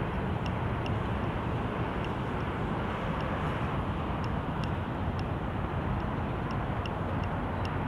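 Steady outdoor background rumble, like distant city traffic, with short high-pitched chirps repeating irregularly about once a second.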